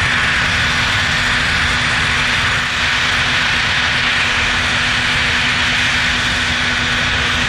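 Jet engines of an Antonov An-124-100 running steadily: a constant loud rushing noise with a steady low hum and a faint high whine over it.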